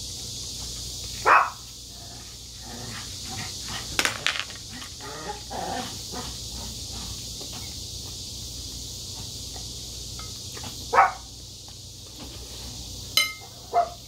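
Close-miked eating sounds: short loud slurps about a second in and again near eleven seconds, with soft chewing and spoon-on-shell scraping in between. A sharp, briefly ringing clink of a metal spoon comes near the end.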